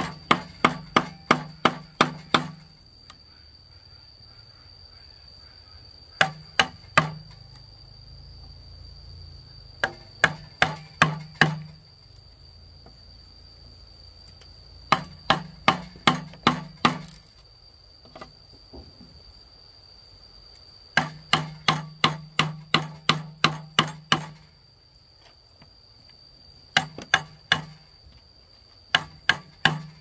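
Hammer striking a chisel to cut a hole in a bamboo pole: sharp knocks about three a second, in short runs with pauses between. A steady high insect drone runs underneath.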